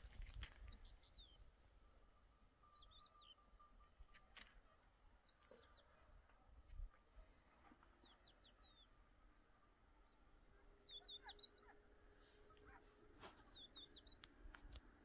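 Faint bird calls: a short phrase of three or four quick, high chirps, repeated six times about every two to three seconds, with a few faint clicks over quiet outdoor background.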